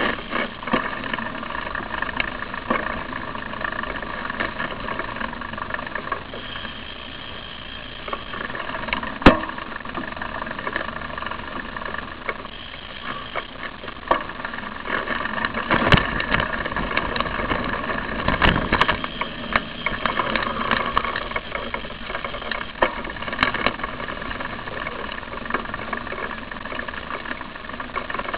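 Car engines idling and creeping in slow traffic close behind, a steady mechanical noise, broken by a few sharp knocks and rattles, the loudest about nine seconds in.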